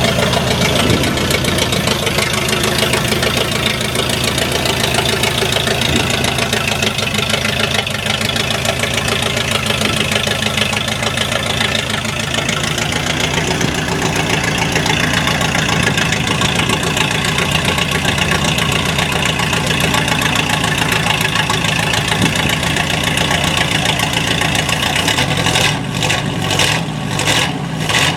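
1951 Ford flathead V8 running at a raised idle through a short exhaust pipe, loud and steady. Near the end the sound turns uneven and pulsing. The engine is not yet running exactly right, with the distributor not advancing the timing.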